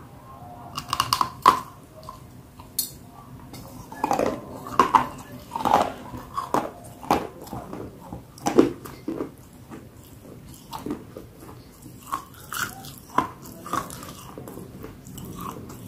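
Close crunching bites into brittle black unshaped slate pencil, then chewing: a string of sharp crunches in clusters with short pauses between.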